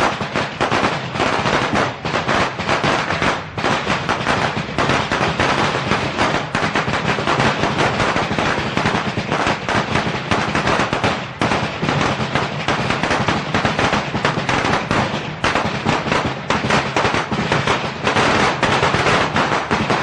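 A string of Chinese firecrackers (biānpào) going off in a dense, unbroken crackle of rapid bangs.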